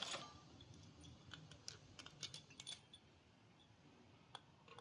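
Faint, irregular light clicks and taps of small hard objects being handled, about eight in all, with one sharper tap a little over four seconds in.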